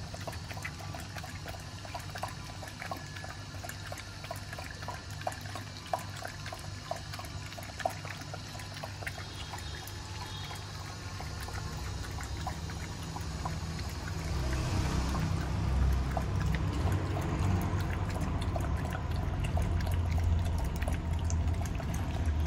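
A mother dog and her puppies lapping milk from a plastic bowl: quick, irregular wet laps and slurps. A low rumble grows louder through the second half.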